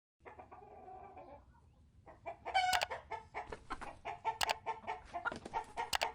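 Chickens clucking: a faint call, then from about two seconds in a rapid run of short, sharp clucks.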